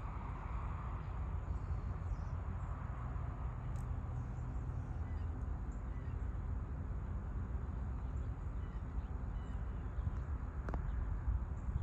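Outdoor rural dawn ambience: a steady low rumble throughout, with faint, scattered bird chirps and a hiss that fades away over the first few seconds.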